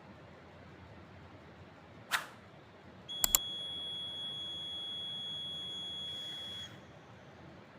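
Piezo buzzer of a homemade MQ5 gas-sensor smoke alarm sounding one steady, high beep for about three and a half seconds, then cutting off suddenly: the alarm set off by the sensor. Just before it there is a brief scrape and two sharp clicks.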